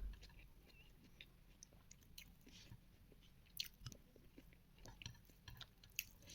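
Faint close-up chewing and mouth sounds of a person eating, with scattered soft clicks and smacks and a couple of slightly louder ones.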